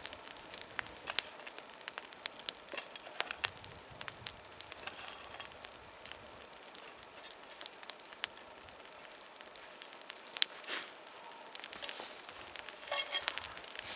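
Small campfire of sticks and bark crackling, with scattered sharp pops over a faint steady hiss.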